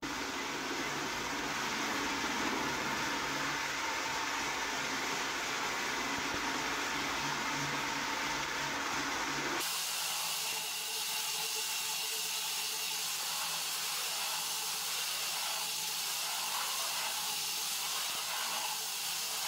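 Rotary floor buffer running with a Diamabrush diamond head, grinding hardened old carpet glue and mastic off an oak hardwood floor: a steady motor hum under a gritty hiss. About halfway through the sound turns thinner and hissier, with less low rumble.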